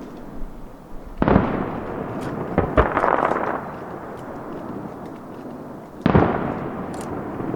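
Aerial fireworks shells bursting: a loud boom about a second in, two sharp cracks and a spell of crackling near three seconds, and another boom about six seconds in, each dying away slowly.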